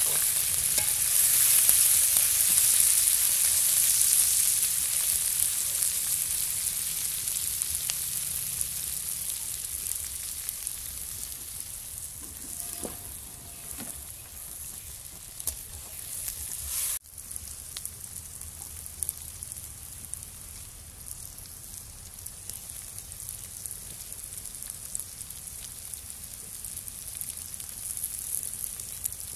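Sliced onions, curry leaves and green chillies sizzling as they fry in a metal wok over a wood fire: a steady hiss that grows fainter over the first half as the onions soften.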